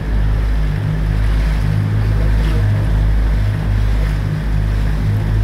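Tour boat's engine running steadily under way: a loud, even low drone, with water rushing past the hull and wind buffeting the microphone.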